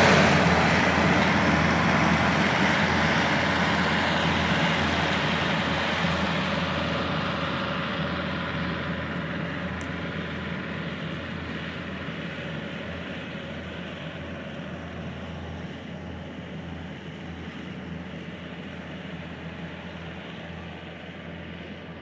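Diesel engine and tracks of a Gehl RT-series compact track loader running steadily as it drives away, growing gradually fainter.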